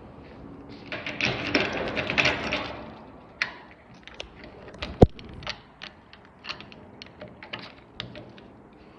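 Objects being handled and moved about: a rustling clatter for about two seconds, then a scattered run of sharp clicks and light knocks, with one loud knock about five seconds in.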